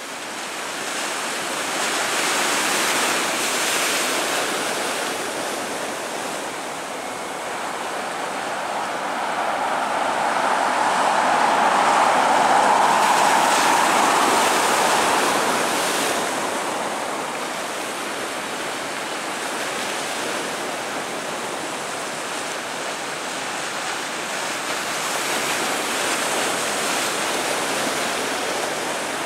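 Airbus A320-232's IAE V2500 jet engines at idle thrust as the airliner taxis and lines up on the runway: a steady rushing noise that swells to its loudest about halfway through, then eases off.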